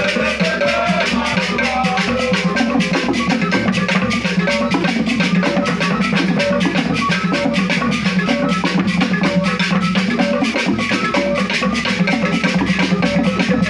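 Masquerade dance music: drums and shaken rattles playing a fast, steady, driving rhythm, with short repeated pitched notes over it.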